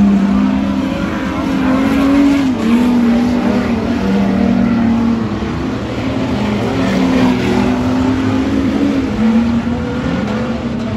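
Several street stock race cars' engines running hard in a race, their pitch rising and falling over and over as the cars accelerate and back off.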